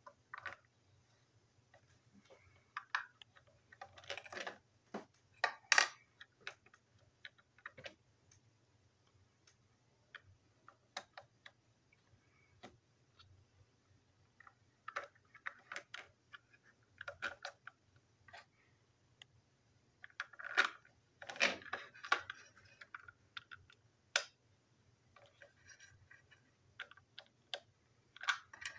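Small plastic parts of a TrackMaster toy train truck clicking and clattering as they are handled and fitted together: scattered light clicks, with busier rattling a few seconds in and again about two-thirds of the way through.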